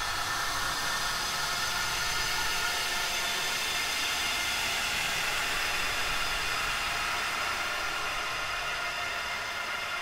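Horror sound effect of ghostly wails of the dead: a steady hissing, wind-like drone with faint drawn-out tones held within it, no separate cries standing out.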